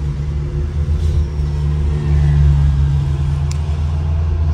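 Pickup truck's engine and road noise droning inside the cab while driving: a steady low hum that swells a little about two seconds in. A single sharp click comes near the end.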